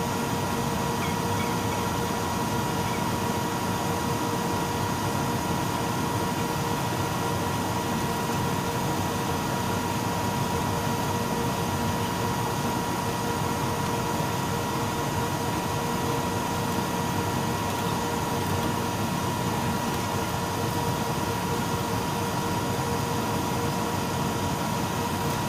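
Biosafety cabinet blower running: a steady whir of moving air with a constant high hum.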